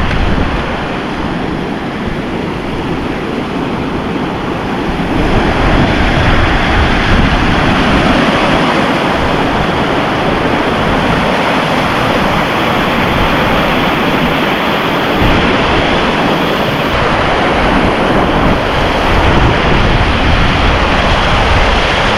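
A waterfall swollen after heavy rain: a dense, steady roar of rushing water that grows louder about five seconds in, with wind buffeting the microphone.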